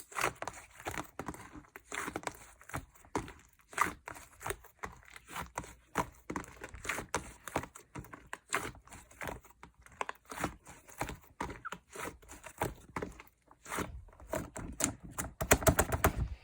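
Hands squishing and poking a slime: a string of sticky clicks and squelching pops, quickening into a rapid, louder crackling run near the end.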